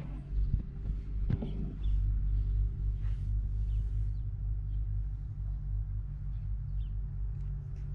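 Nissan Skyline R34 25GT Turbo's RB25DET turbocharged straight-six idling steadily, a low even rumble, with a couple of faint knocks about one and three seconds in.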